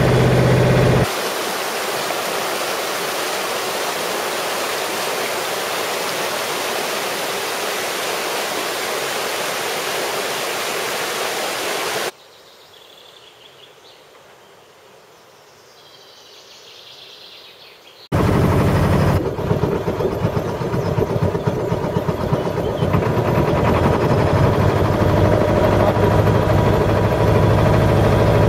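A boat's engine running steadily, which cuts about a second in to a steady rushing hiss. Then comes a quiet stretch with faint bird chirps, and the boat's engine running again for the last third.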